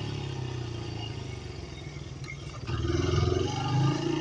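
Dirt bike engine running at low throttle, then opened up about two-thirds of the way in, revving harder in two surges as the bike accelerates.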